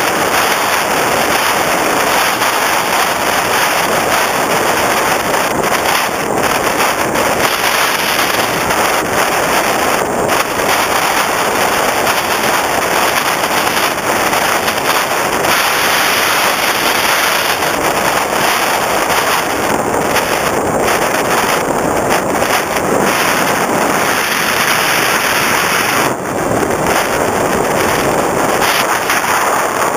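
Steady rushing wind noise on the microphone of a camera carried aboard an FPV Raptor foam RC plane in flight, with its electric motor and propeller blended into the hiss. The level dips briefly near the end.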